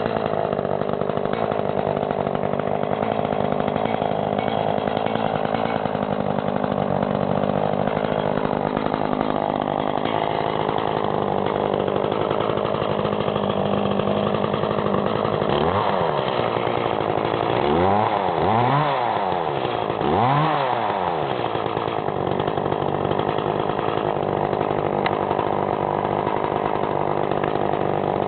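Echo CS-420ES two-stroke chainsaw idling steadily, then revved up and let back down three times in quick succession about halfway through, before settling back to idle.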